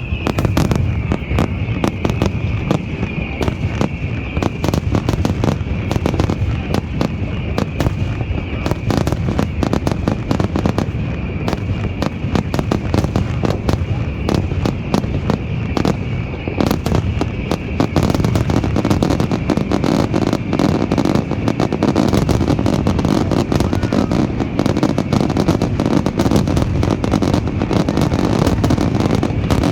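Fireworks display going off in a dense, continuous barrage of rapid bangs and crackles, with a high steady whistle-like tone over the first two-thirds that fades out, and a heavier low rumble of bursts in the last third.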